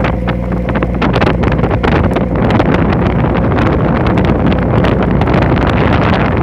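Heavy wind buffeting the microphone over a small boat's engine running steadily, out in rough sea.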